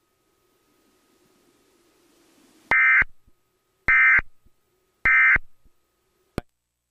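Emergency Alert System end-of-message tones: three short, harsh digital data bursts about a second apart, the code that closes an alert broadcast. A single click follows near the end.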